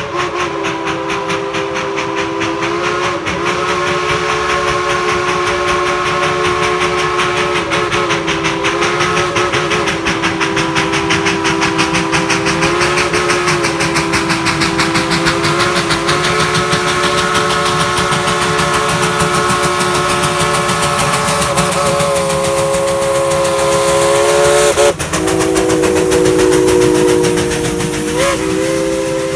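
Narrow-gauge steam locomotive #190 "Yukon Queen" blowing its chime whistle, a chord of several notes held in long, nearly unbroken blasts with a few brief breaks, over rapid exhaust chuffing. It grows loudest as the train passes close by near the end.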